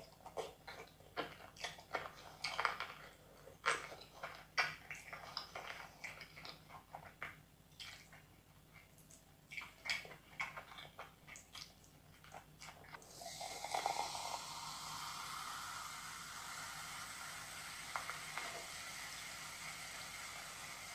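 Close-miked eating with the hands: wet chewing, lip smacks and squishing of curry and rice as short, scattered clicks for about the first thirteen seconds. Then cola is poured from a can into a glass mug, a steady fizzing pour that lasts to the end.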